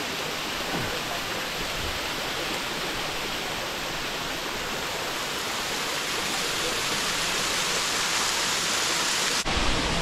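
Steady rushing of a thin waterfall spilling over a rock face into a pool, with one brief break near the end.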